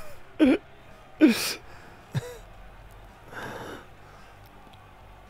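A few short non-word sounds from a man's voice: a brief hum, a sharp breathy gasp about a second in, a short pitched sound, and a breathy exhale around three and a half seconds. After that there is only a faint steady background.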